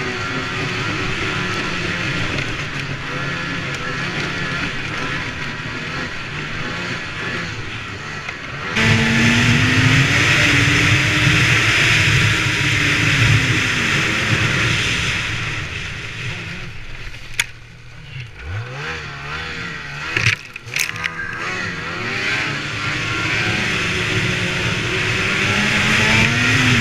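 Snowbike's motorcycle engine running under way, jumping louder about nine seconds in and rising and falling in pitch with the throttle. Around two-thirds of the way through it drops to a low note for a few seconds, with a few sharp knocks, then builds up again.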